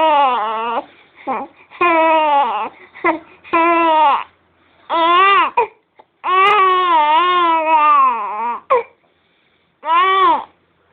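A baby crying: loud, wavering wails one after another, each lasting from half a second to more than two seconds, with short breaks for breath between them.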